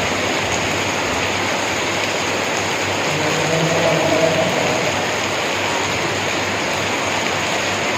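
Heavy rain pouring down, a steady, dense hiss of water with no break.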